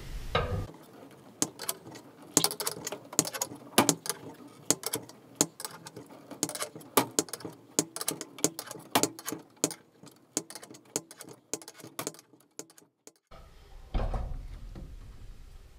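Steel winding bars clinking and clicking in the winding cone of a garage door torsion spring as the spring is unwound a quarter turn at a time to release its tension. The irregular metallic clicks give way to a low rumbling noise near the end.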